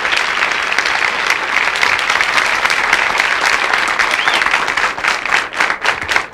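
Studio audience applauding, thinning out into scattered separate claps near the end.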